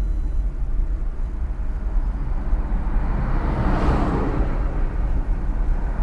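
Car road noise, a steady low rumble, with a louder rushing swell that peaks about four seconds in and then fades.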